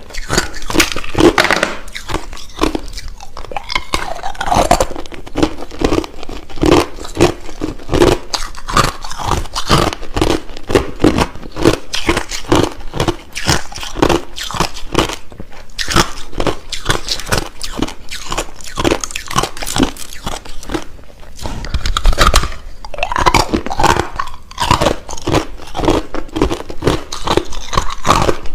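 Close-up crunching of hard crushed ice: a person biting and chewing it in a rapid, irregular run of loud crunches.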